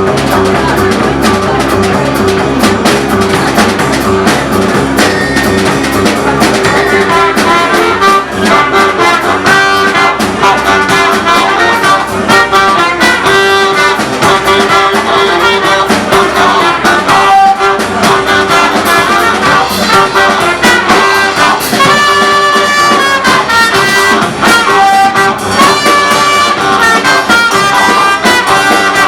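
A live band playing a song loudly, with a brass lead line over a steady bass and beat.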